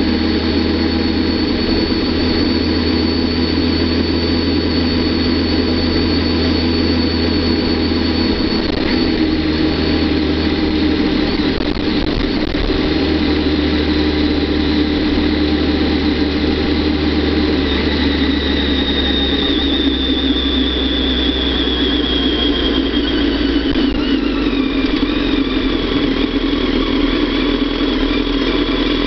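Kawasaki ZX-10R's inline-four engine running steadily at light throttle on a downhill ride, with a high whine over it. Past the halfway point the engine note and whine fall in pitch as the bike slows.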